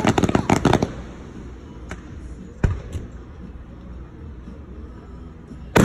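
Aerial fireworks: a quick volley of crackling pops in the first second, a few single pops a couple of seconds in, then one loud shell burst near the end that echoes away.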